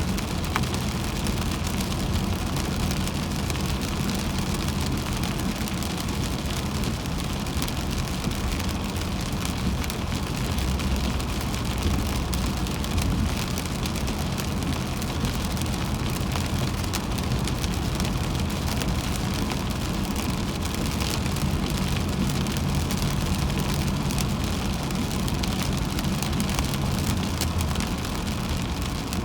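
A car driving on a wet highway in rain: steady rumble of the tyres and road with an even hiss of rain and spray, heard from inside the car.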